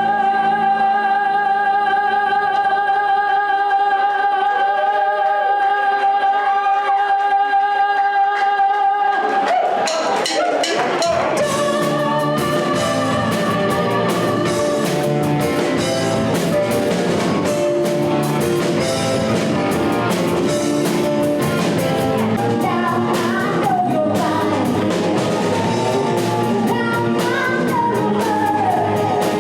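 Live rock band playing with singing: a single held note for about nine seconds, then the full band with drums comes in and plays on.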